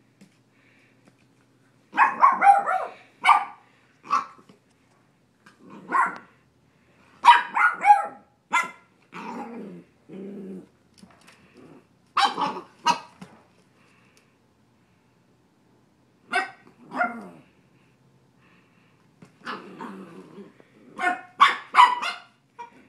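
Puppy giving short, high play barks in several bursts during rough play, with a lower, longer growl a little before halfway through.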